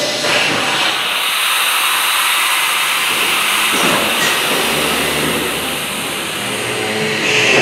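Engineering train wagons rolling past along the platform: a steady noise of wheels on rail with a strong hiss, easing slightly about six seconds in.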